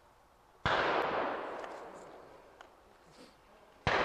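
Two black-powder rifle shots about three seconds apart, each a sudden bang followed by a long echo that dies away over a couple of seconds.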